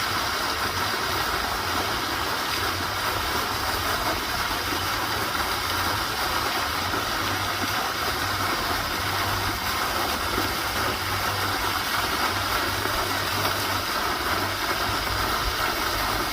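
Flowing water rushing in a steady, unbroken roar, like a stream or small waterfall heard close up.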